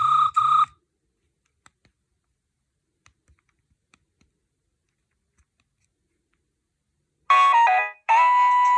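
Nokia 6610 mobile phone playing ringtones through its speaker. A fast-pulsing ringtone, about three beeps a second, cuts off within the first second. A few faint keypad clicks follow, then about seven seconds in a new polyphonic ringtone melody starts.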